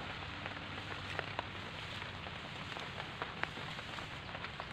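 Steady rain falling on the grass and leaves, a fairly heavy drizzle, with many scattered sharp ticks of single drops.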